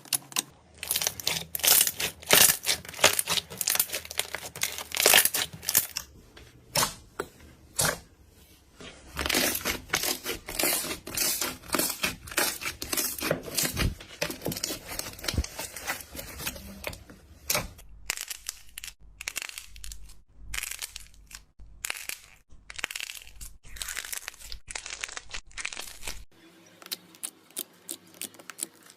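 Slime being squeezed, stretched and poked by hand, making dense, irregular crackling and popping clicks in runs, fainter near the end.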